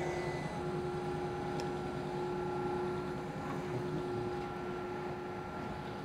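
Electric motor of a countertop pasta extruder, fitted with a spaghetti die, starting up and then running with a steady hum as it pushes out fresh pasta.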